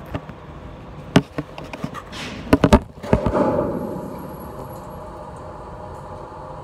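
Camera phone being handled and set down: a run of knocks and clatters, the loudest three in quick succession about two and a half seconds in, then a steady hum.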